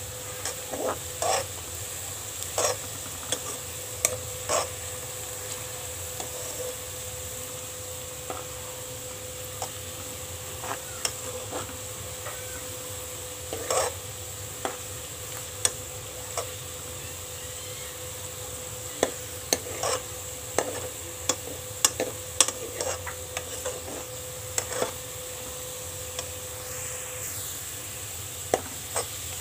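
Sliced onions sizzling in hot oil in a large metal pot as they turn golden brown, with a steel ladle stirring them and knocking and scraping against the pot in scattered sharp clicks, busiest around twenty seconds in.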